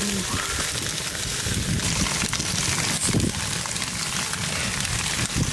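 Steady hiss of steam off fire-heated rocks against meat and wet cow hide, with an irregular low rumble underneath.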